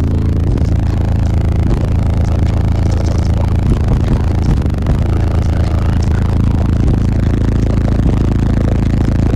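A car audio system of twelve Wolfram AU 12-inch subwoofers in a sixth-order enclosure, driven by about 18,000 watts, plays music at very high volume, heard inside the vehicle's cabin. Heavy, steady bass dominates, with a noisy haze over it.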